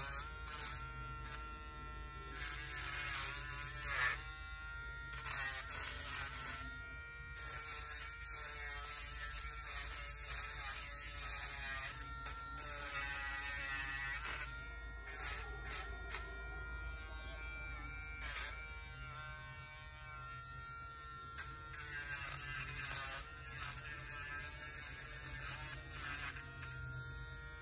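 Dremel 750 cordless pet nail grinder running steadily at its single speed with a constant high buzz. Every few seconds its spinning drum is pressed to a dog's toenail, adding a brief rasping grind.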